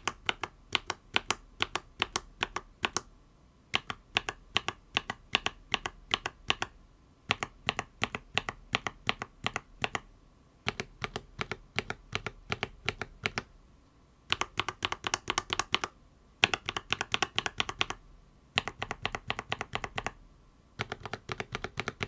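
Akko tactile mechanical keyboard switches (V3 Cream Blue, CS Wine White, CS Lavender Purple, CS Jelly Purple) pressed under keycaps in a keyboard, typed in runs of quick keystrokes with short pauses between.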